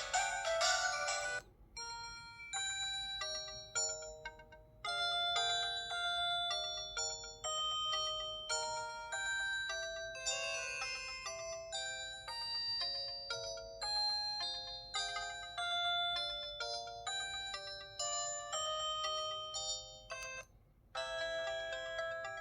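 Built-in polyphonic ringtones of a Curitel PH-L4000V mobile phone playing through its speaker. One melody ends about a second and a half in, a new tune plays with a short break partway, and near the end it cuts off and the next ringtone starts.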